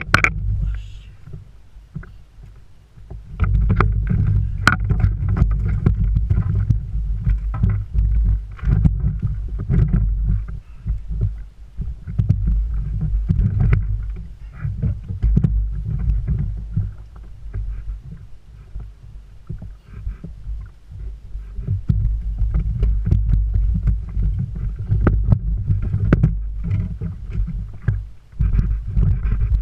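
Gusty low rumble of wind buffeting the microphone, swelling and dropping every few seconds, with scattered light clicks and knocks throughout.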